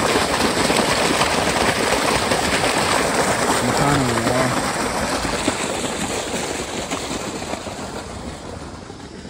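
Irrigation water gushing from a large pipe outlet into a channel, a steady heavy rush that fades away over the last few seconds.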